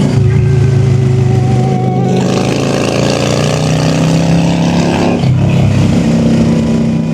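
Honda Shadow V-twin cruiser motorcycle engine accelerating, its pitch rising for a few seconds, then levelling off.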